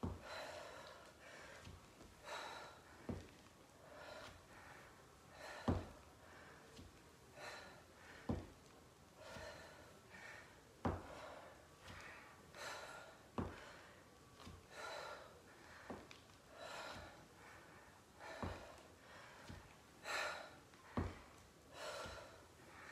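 A woman breathing hard in time with lunge and knee-drive exercise reps, a short breath sound about every second. A short thud comes about every two and a half seconds, once per rep.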